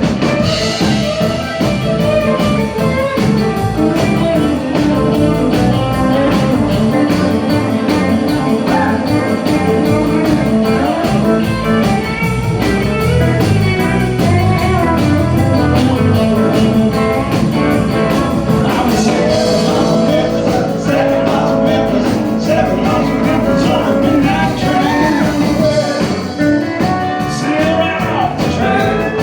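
Live country band playing, with guitars over a steady drumbeat.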